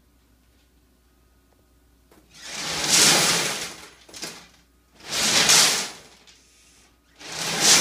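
Numbered lottery balls tumbling and rattling inside a clear acrylic draw drum as it is turned by hand, in three rushes about two and a half seconds apart, starting about two seconds in.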